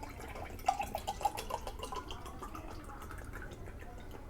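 Wet, sticky food sounds from eating or mixing curry and rice: a quick series of small clicks and plops, busiest in the first couple of seconds and then thinning out.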